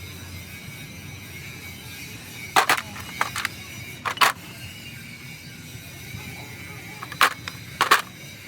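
Sharp knocks of tools against metal steering-box parts, in three short clusters: a pair and a double knock a few seconds in, then two more knocks near the end.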